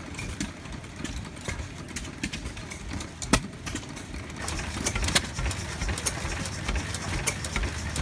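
Antique stationary gas engines running: a steady low chugging with irregular sharp exhaust pops, the loudest about a third of the way in and again past the middle.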